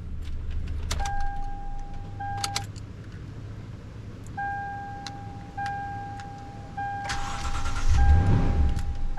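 2011 Toyota Tundra's 4.6L V8 running just after starting, now that the blown injector fuse has been replaced, with a steady electronic warning chime sounding in long repeated tones from about a second in. About seven seconds in a louder rush of noise and a heavier rumble come in.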